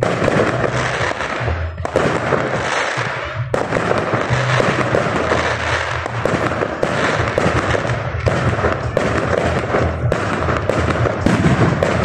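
Fireworks display: a dense, continuous run of crackling and popping shell bursts, with music playing underneath.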